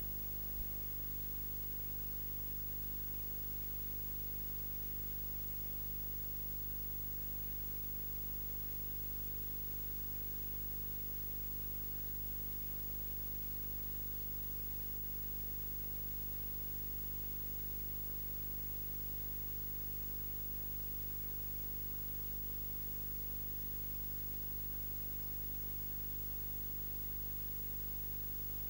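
Steady electrical buzz and hiss from a camcorder recording with its microphone unplugged: a hum with many evenly spaced overtones over a constant hiss, and no room sound. A single click about half a second in.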